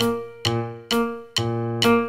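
Background music on a piano-like keyboard, with notes or chords struck about twice a second, each ringing and fading before the next.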